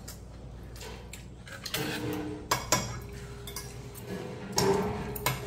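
Metal spoon and chopsticks clinking against a stainless-steel bowl and side dishes while eating, with a pair of sharp clinks about two and a half seconds in and more near the end.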